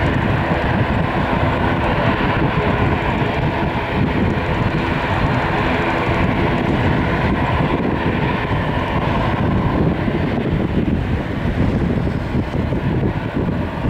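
Airbus A320 jet airliner's twin engines running at taxi power, a steady rushing hum that holds level throughout, with wind buffeting the microphone.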